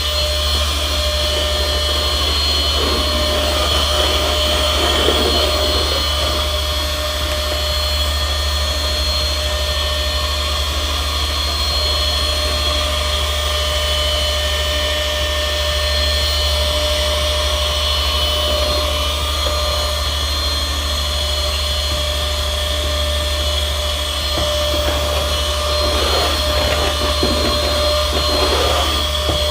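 Small vacuum cleaner running steadily with a high whine, sucking up loose static grass fibres from the model scenery.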